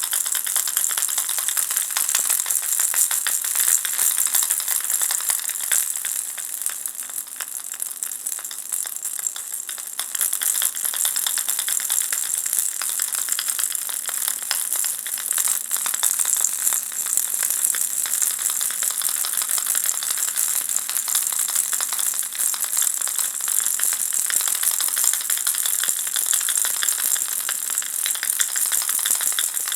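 Ball-shaped baby rattle toy shaken continuously, a dense, mostly high-pitched rattling with a shimmering quality. It eases off and grows quieter for a few seconds about a quarter of the way through, then picks up again.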